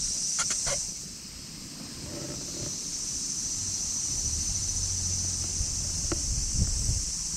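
Cats rubbing against the camera, their fur brushing over the microphone: a low rubbing rumble with a few light knocks, over a steady high hiss.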